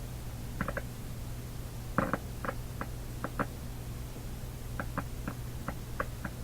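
Vintage tube radio on the bench, just warmed up, giving a steady low mains hum with irregular crackles and pops scattered through it. The hum is put down to the aging filter capacitors in the power supply.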